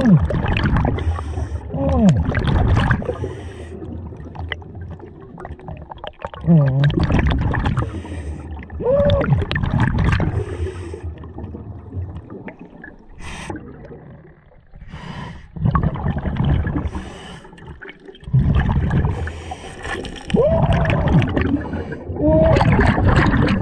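Scuba diver breathing underwater through a regulator, heard close up: loud gurgling rushes of exhaled bubbles every few seconds, with short wavering squeaky tones, and a quieter spell in the middle.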